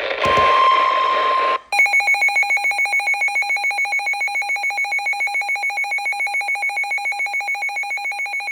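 Electronic emergency alert tones from a weather-alert broadcast. A steady high beep lasts about a second and a half. After a brief gap comes a loud ring-like tone of several pitches, pulsing rapidly at about seven pulses a second.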